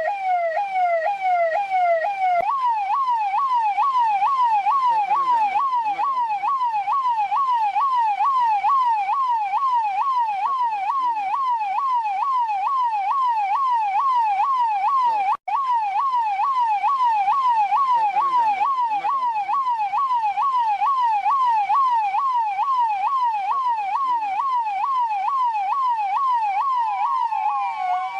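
Russian police car siren sounding a fast yelp, rising and falling about twice a second. It jumps to a higher pitch a couple of seconds in, cuts out for an instant near the middle, and changes to a slower wail at the very end.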